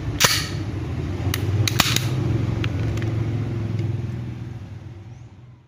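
Sharp metallic clicks from handling a KJ Works KP02 Sig Sauer P229 gas airsoft pistol, with one louder snap about a quarter second in and about half a dozen fainter clicks after it. A steady low hum runs underneath, and everything fades out near the end.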